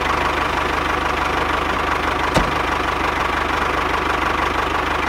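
Miniature toy tractor running as it drives off: a steady, rapid engine-like chugging with a constant whine over it, and a single click about two and a half seconds in.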